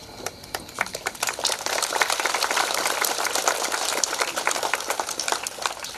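A large crowd applauding. The clapping builds over the first second or two, holds thick and steady, then thins out near the end.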